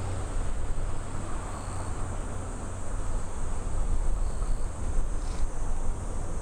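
Outdoor noise with a steady low rumble and a short, high insect call repeating about every two and a half seconds.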